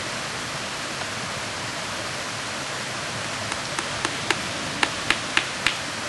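A small hammer tapping a nail into hemlock bark: about eight short, sharp taps in quick succession from about halfway through, over a steady hiss.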